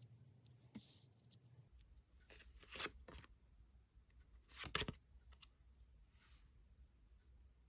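Tarot cards being handled: a few faint rustles and taps, the loudest a short cluster about five seconds in, over a low steady hum.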